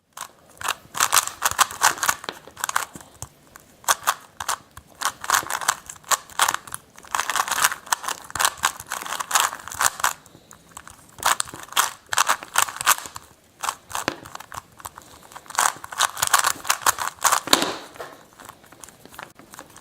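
Rubik's cube being turned quickly: rapid clicking of its plastic layers in flurries, with short pauses between them.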